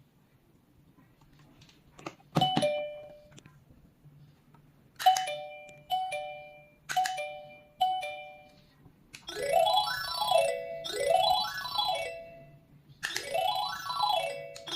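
Wireless doorbell chiming a two-note ding-dong, each with a sharp click at its start: once, then four more times about a second apart. From about two-thirds of the way in, it plays a longer chime tune of quick rising and falling note runs, repeated in phrases.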